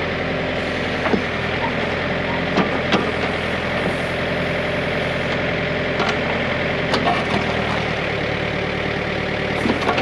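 John Deere 110 backhoe loader's diesel engine running steadily as the backhoe digs at a tree stump, with a few short sharp knocks and cracks from the bucket working the dirt and roots.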